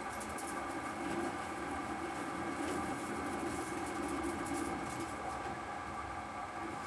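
ProtoTRAK SLX CNC lathe running under program, its spindle turning and the tool cutting the ball end of a metal hitch ball. A steady hum of several tones over a rushing noise.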